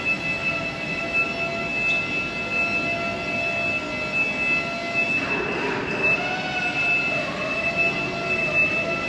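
Steady background hum with several constant high-pitched whining tones.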